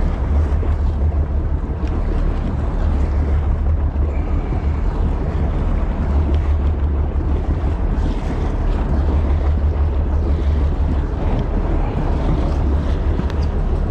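Steady low wind rumble on the microphone aboard a boat, with sea and water noise underneath.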